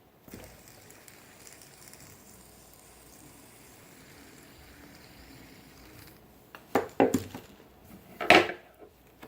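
Fidget spinners being handled, clacking against each other or a hard surface: a quick cluster of sharp clacks about two-thirds of the way in and one louder clatter near the end, with faint room noise before them.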